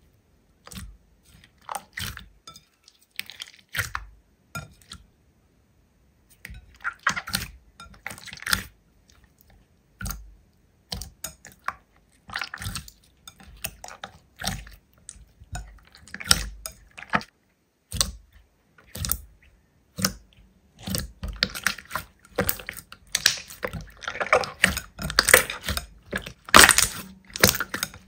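Slime being squeezed and pressed by hand, making irregular sticky clicks and pops, with a brief pause about five seconds in; the clicks come thicker and louder in the last several seconds.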